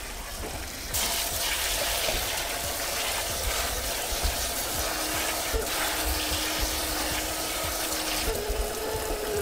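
Kitchen tap and pull-down sprayer running, water spraying onto chopped cabbage in a stainless steel colander in the sink. The rush gets louder about a second in and holds steady, with a faint tone that steps up in pitch near the end.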